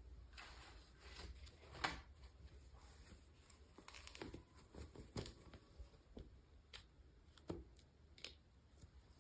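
Faint rustling and crinkling of packaging being handled and torn open, with scattered small clicks and taps, the sharpest about two seconds in.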